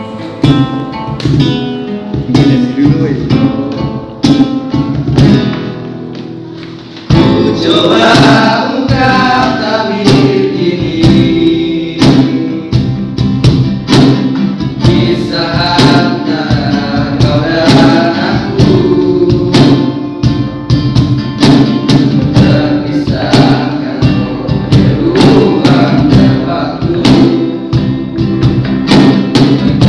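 Small acoustic group playing a song: a nylon-string classical guitar and a hand-played cajón accompany several young male voices singing together. The first seven seconds or so are quieter; then the singing comes in and the whole band grows louder, with a steady cajón beat.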